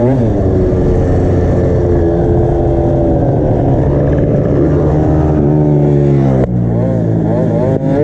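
Minarelli two-stroke engine of an MBK Booster scooter revving hard, its pitch wavering up and down. About six and a half seconds in the note drops suddenly, then climbs again near the end.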